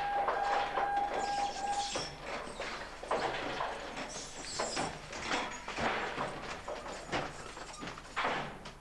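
A steady electronic alarm tone, the fire station's call-out alert, that cuts off about two seconds in, followed by hurried footsteps, clatter and doors as firefighters turn out.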